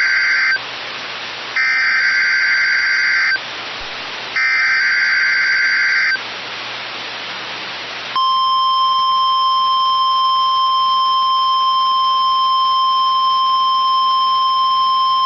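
NOAA Weather Radio emergency alert broadcast. It opens with three harsh warbling data bursts, the SAME digital header, each about two seconds long with hiss between. About eight seconds in, the steady 1050 Hz warning alarm tone starts and holds without a break, marking the start of the weekly alarm test.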